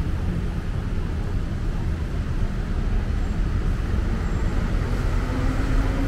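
Steady road traffic noise, a low rumble of city vehicles. A vehicle engine's hum comes up and rises slightly in pitch near the end.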